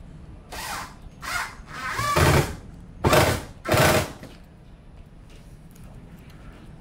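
Cordless drill-driver driving screws into a display-case insert, in about five short bursts of the motor over the first four seconds.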